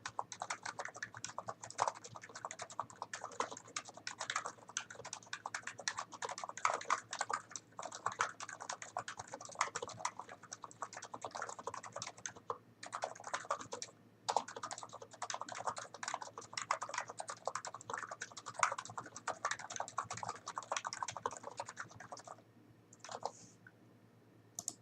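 Continuous typing on a NIZ Plum Nano 75 keyboard with 45 g electrostatic capacitive switches and PBT keycaps, a rapid stream of keystrokes with a 'thock' to them. It breaks for two short pauses midway and stops a couple of seconds before the end, leaving a few single keystrokes.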